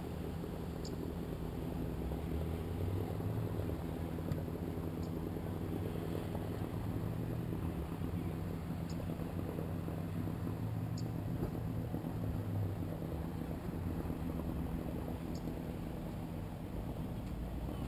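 A steady low drone of an engine running, with a few faint, scattered ticks.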